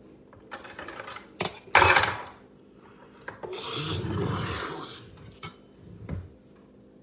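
Table knife and plate clinking and knocking on a kitchen counter: a few separate knocks and clatters, the loudest about two seconds in.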